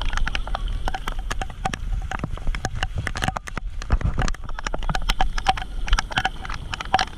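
Heavy rain falling, its drops heard as many irregular sharp taps over a low rumble.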